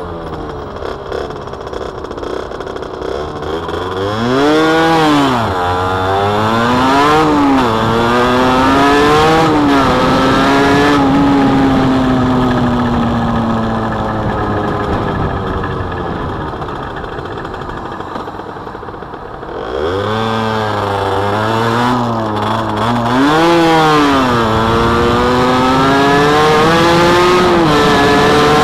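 Derbi 50cc two-stroke motorcycle engine revving up through the gears, its pitch climbing and dropping at each shift. About halfway it winds slowly down as the bike slows. Just before the last third it pulls hard again, climbing through several more shifts.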